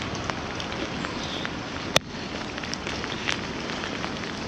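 Steady rain falling on wet pavement, with scattered drop taps and one sharp tap about two seconds in.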